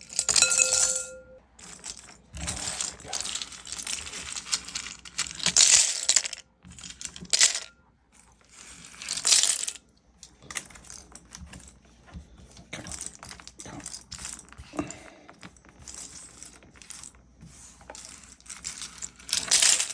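Loose plastic keyboard keycaps clattering into a container in several loud bursts, with lighter rattling between them.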